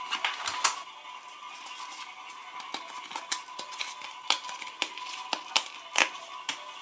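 Paper sticker packet handled and torn open by hand: crinkling and sharp crackles as the tear strip comes off, loudest near the start and about six seconds in, over a faint steady tone.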